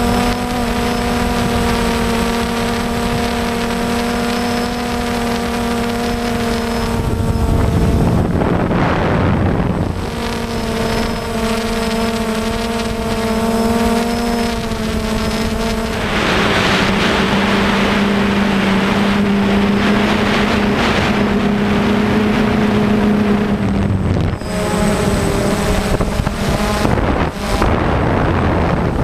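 DJI Phantom quadcopter's motors and propellers running with a steady hum, heard from the camera on board; the pitch steps down a little past halfway and shifts again near the end. Gusts of wind rush across the microphone now and then.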